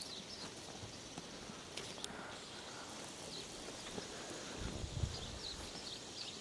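Quiet outdoor ambience with faint birds chirping on and off throughout, and a soft low thud about five seconds in.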